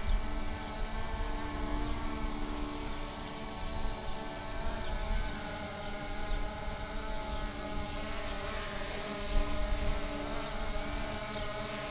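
Small quadcopter drone's propellers buzzing steadily in flight, the pitch shifting slightly about eight seconds in.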